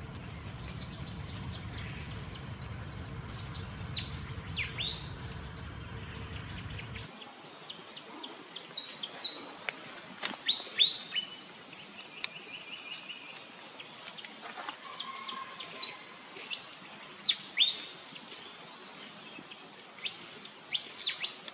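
Birds calling in repeated bursts of short, sharp, high notes that sweep downward. A low rumble of background noise sits underneath and stops abruptly about a third of the way in.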